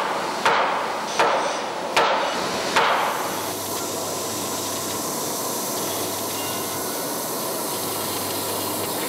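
Hammer blows on the locomotive's steam pipe fittings, four sharp ringing strikes about three-quarters of a second apart, during the repair of the leaking main steam pipe. A steady hiss takes over after about three and a half seconds.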